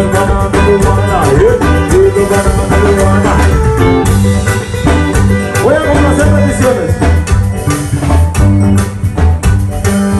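Live band playing upbeat dance music: drums and bass keep a steady beat, with electric guitar and a man singing into a microphone.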